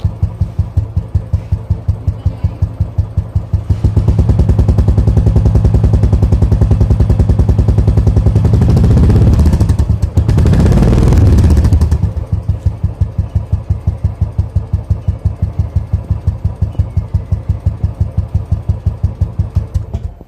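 Royal Enfield Classic 350 BS4 single-cylinder engine thumping through its exhaust, freshly after its first service. It idles with an even beat, is revved up for several seconds from about four seconds in with a short dip in the middle, then settles back to idle.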